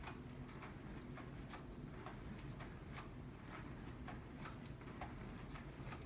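Samsung DW80R9950US dishwasher running mid-cycle: a faint steady low hum with soft ticks roughly twice a second.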